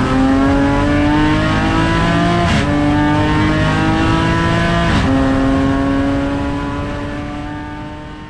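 Supercharged BMW M54B30 straight-six in a Rotrex-equipped E46 330i, heard from inside the cabin, pulling hard with its pitch climbing. It changes up twice through the 8HP automatic gearbox, about two and a half seconds and five seconds in, each shift a sudden drop in pitch with a short crack. After the second shift the engine note holds nearly steady and fades out over the last couple of seconds.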